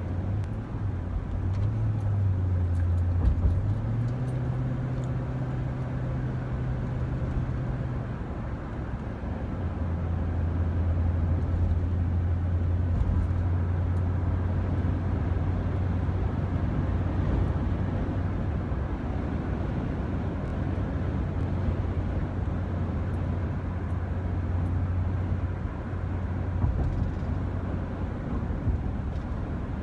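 Car engine running with road noise: a low hum that shifts in pitch a few times in the first eight seconds, then holds steady.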